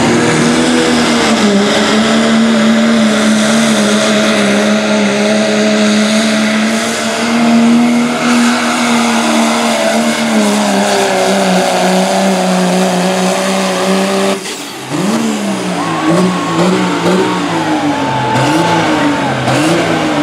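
Diesel engine of a Dodge Ram pulling pickup held at full throttle under load as it drags a pulling sled, a steady high engine note. About 14 seconds in the throttle is suddenly cut as the pull ends, and the engine is then revved up and down several times.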